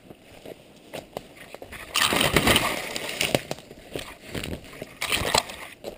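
Close rustling and crackling of ferns and undergrowth as someone pushes through on foot, with scattered twig snaps. The loudest stretch is a dense rush of brushing leaves about two seconds in, lasting a second and a half, with a shorter burst near the end.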